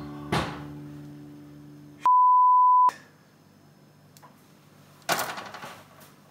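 Acoustic guitar music fading out with a final strum, then a single loud electronic beep at one steady pitch lasting under a second, about two seconds in: a kitchen timer signalling that the baking time is up. A short burst of rustling noise follows near the end.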